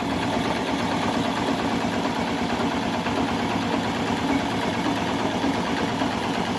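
Honda CG 125 Fan's single-cylinder four-stroke engine idling steadily and quietly, freshly rebuilt with a new piston and cylinder after oil-starvation wear, with no knocking to be heard.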